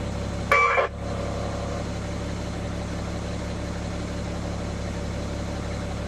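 Fire engine idling steadily, heard from the cab, with a short burst from the two-way radio about half a second in.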